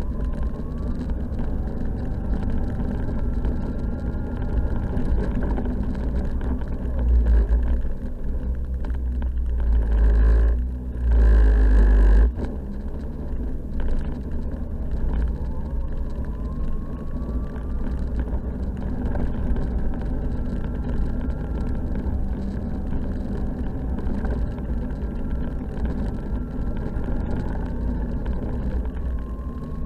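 Snowmobile running steadily along a trail, its engine note drifting gently up and down under a heavy low wind rumble on the microphone. The rumble and rush swell louder twice about a third of the way in, the second time for a couple of seconds.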